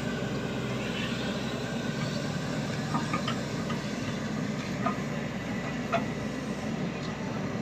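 Shantui excavator's diesel engine running steadily under work, with a few short metallic clanks a few seconds in.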